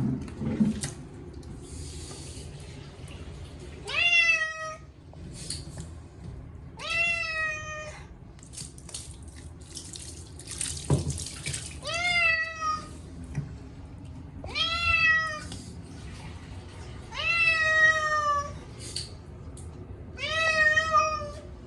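A Munchkin cat meowing loudly during a bath: six long, plaintive meows about three seconds apart, each rising at the start and then sliding down. The cat is protesting being washed. Water hisses from a running tap or shower between the calls.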